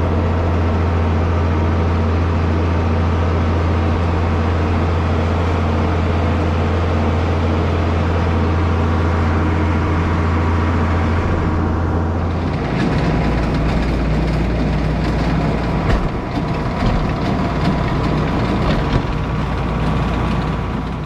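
Tractor engine running steadily at constant speed. About twelve seconds in, its low note drops and a rougher, rattling clatter with scattered knocks comes in.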